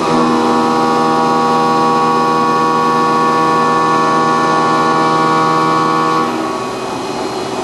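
CNC milling machine's insert end mill cutting an impeller blade passage on a rerun pass at higher spindle speed. It gives a steady whine of several held tones at once, which stops about six seconds in and leaves the machine's plainer running hum.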